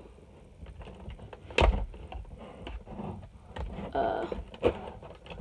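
Cardboard and plastic toy packaging being pulled and handled by hand, with scattered clicks and scrapes and a thump about a second and a half in.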